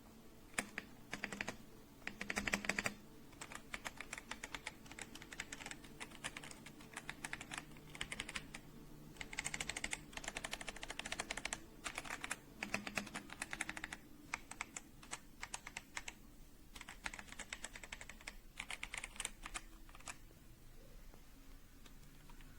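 Typing on an AJAZZ AK820 75% mechanical keyboard: quick runs of key clicks in bursts of a second or two, with short pauses between. The typing stops about twenty seconds in.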